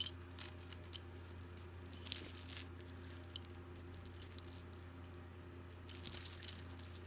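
Pieces of costume jewelry clinking and jangling against each other as they are handled and sorted, in short bursts with the most jangling about two seconds in and again near the end. A steady low hum runs underneath.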